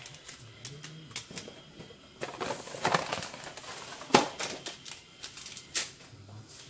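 Scattered light clicks and taps with short rustles of paper as tea bag packets and small items are handled on a kitchen counter; the sharpest click comes about four seconds in.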